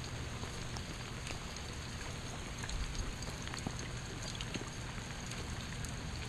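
Steady light rain, with scattered small raindrop ticks.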